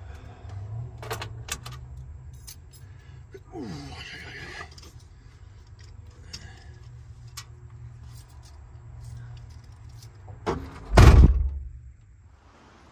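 Scattered knocks and clatter of gear being shifted in a cargo van, then the van's rear door slammed shut near the end: a smaller knock followed by a loud, heavy thud.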